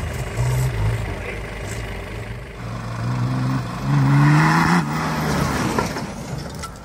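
Off-road 4x4's engine revving in surges, climbing in pitch and loudest about four seconds in, then fading away.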